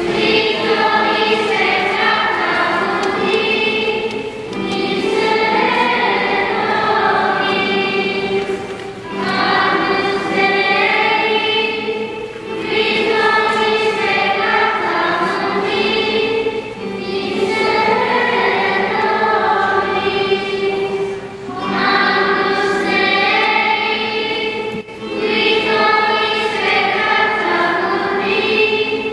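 A choir singing a hymn, in sustained phrases with brief breaths between them every four to five seconds.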